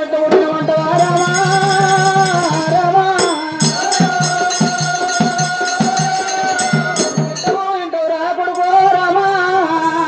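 Oggu Katha folk ballad singing: long, held sung notes over a fast, even drum beat with jingling percussion like a tambourine or small cymbals. The drum drops out briefly twice, once near the middle and again near the end.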